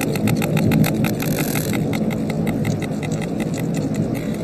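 Sperm whales clicking underwater: a rapid train of sharp clicks, about ten a second, becoming fainter and more irregular after about two seconds, over a low underwater rumble.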